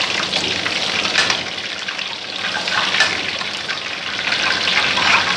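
Chicken cubes sizzling in hot oil at the end of deep-frying: a steady hiss full of small crackles as the pieces are scooped out with a metal slotted skimmer.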